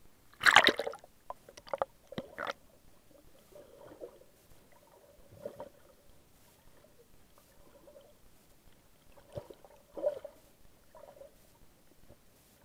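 Water splashing over an action camera as it dips below the sea surface, loudest about half a second in, followed by a few sharp clicks. Then short underwater gurgles and bubbling at a few scattered moments, the strongest about ten seconds in.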